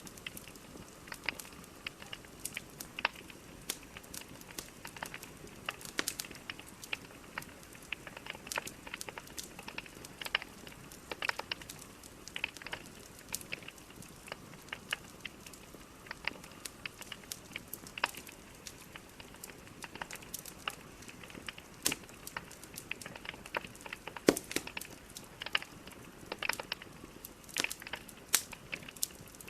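Burning logs in a fireplace crackling and popping: irregular sharp snaps, several a second, over a steady low hiss of the fire.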